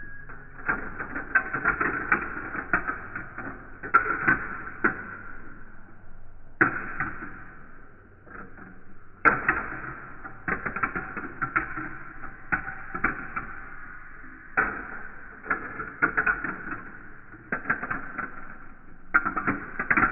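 Marbles rolling and clattering through a plastic Duplo-block marble run, in bursts of rapid clicks and knocks with brief lulls between them, over a steady rolling rumble.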